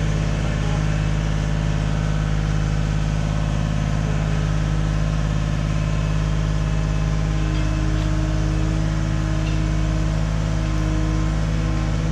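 Engine of a piece of work-site machinery idling steadily, with a faint extra hum from about seven to eleven seconds in.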